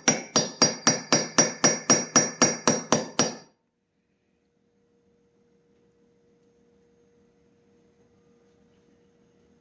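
Rapid light hammer taps, about four a second, with a metallic ring, driving a chainsaw crankshaft seal into the crankcase. The tapping stops about three and a half seconds in, leaving a faint steady hum.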